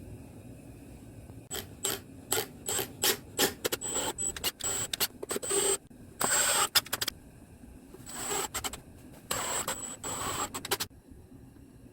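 A hand tool scraping on wood in a run of short, quick strokes, with a few longer strokes near the middle and toward the end.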